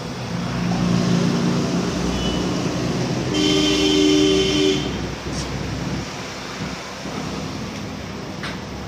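Road traffic: a motor vehicle running past, then a vehicle horn sounding one held blast of about a second and a half near the middle.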